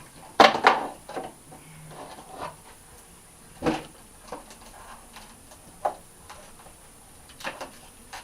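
A cat's tongue licking a laptop: short, irregular wet clicks and knocks, a few seconds apart, the loudest near the start, over a faint steady high whine.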